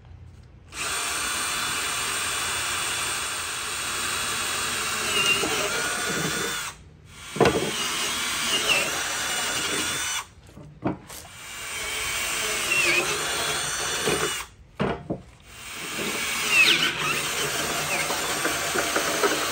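Cordless drill boring holes through a 1/4-inch aluminum plate, running in four long bursts with brief stops between them. Between and within the runs there are a few knocks and squeals as the bit bites into the metal.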